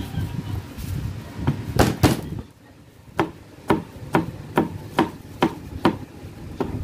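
Chef's knife chopping garlic cloves on a cutting board: two heavier knocks about two seconds in, then a steady run of about eight chops, roughly two a second.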